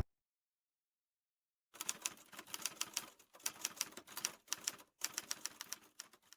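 Typewriter keys clacking in a quick, uneven run of quiet clicks, starting about two seconds in after a silence.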